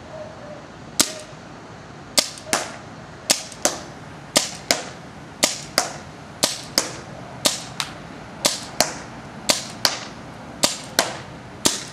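Kingman Chaser 11mm CO2 paintball pistol firing slowly, about one shot a second. Each sharp pop is followed about a third of a second later by a second crack.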